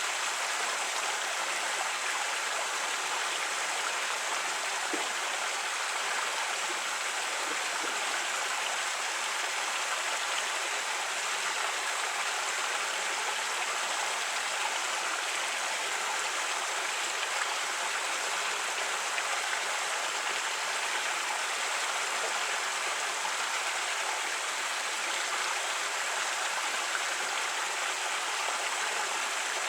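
Creek water flowing and splashing over rocks in a steady, even rush.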